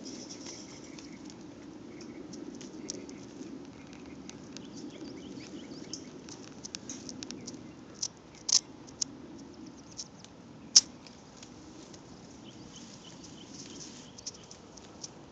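Goats grazing close by, tearing and chewing weeds: a scattered run of small crisp clicks and crunches, with a few louder snaps partway through.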